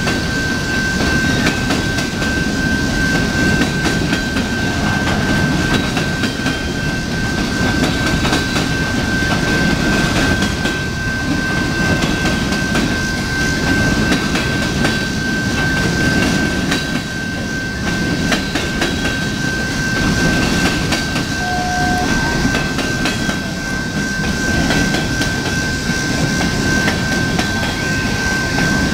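Freight train's coal cars rolling past: a steady rumble of steel wheels on rail with rapid clicking over the rail joints. A thin, steady high tone sounds throughout.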